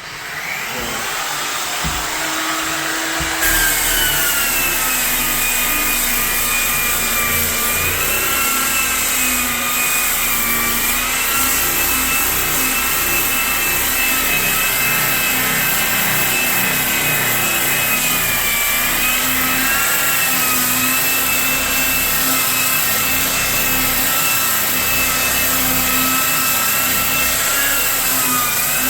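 Electric rotary sander with an 80-grit pad stripping an old coating off a fiberglass tub insert. It spins up at the start, then runs steadily with a whine that dips and rises slightly in pitch as it grinds.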